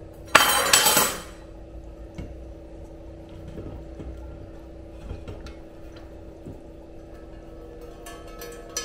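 Stainless steel kitchen vessels handled on a stone counter: a loud clatter of about a second just after the start, then soft rustling and small clinks, with a short clink near the end.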